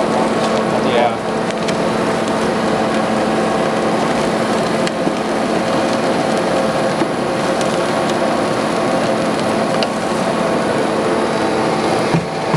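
Vincent screw press running on shredded, soaked pistachio shells: a steady machine hum over dense, even noise as the material is pressed and the press cake is pushed out.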